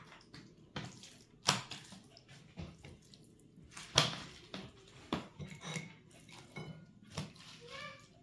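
Wet squelching and slapping of hands working a spice marinade into raw fish pieces in a plastic dish, with several sharp knocks, the loudest about four seconds in.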